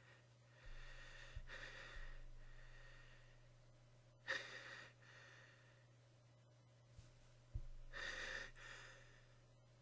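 Faint breathing and gasping inhalations, the build-up to a sneeze: soft breaths about a second in, a sharper gasp about four seconds in, and another breath near the end.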